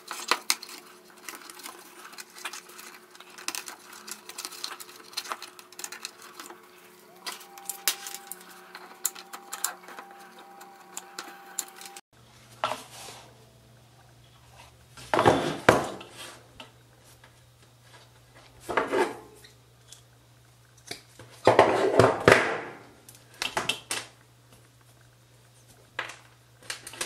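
Many light clicks and taps from hands working inside a plastic disco-ball light housing among its circuit boards and wires. After about twelve seconds come a few louder scraping rustles as wire is handled.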